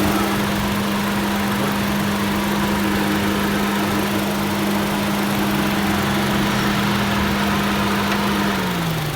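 Honda City ZX GXi's four-cylinder petrol engine idling steadily with the AC on, just after a water-and-vinegar decarbonization treatment; the owner finds the engine sound a little reduced. The idle note dips slightly near the end.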